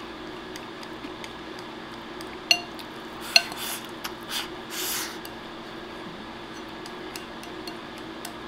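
Chopsticks clinking twice against a ceramic rice bowl, with a short ring, then three short slurps as rice and egg are shoveled from the bowl's rim into the mouth.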